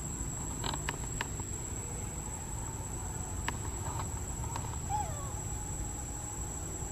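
Steady high-pitched insect drone in the background, with a few faint clicks and one short chirp about five seconds in.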